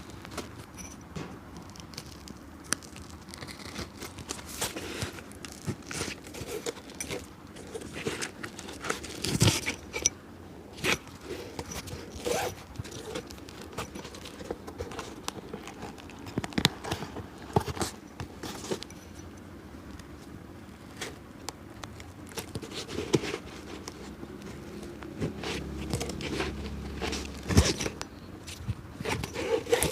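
Cobbler's hand work on an old shoe: irregular scraping, tearing and crinkling with short clicks, and a couple of louder sharp knocks, about a third of the way in and near the end.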